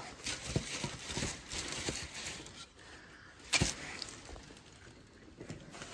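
Handling noises as boards and a cardboard shoebox are moved: scattered light knocks and rustling, with one sharp knock about three and a half seconds in.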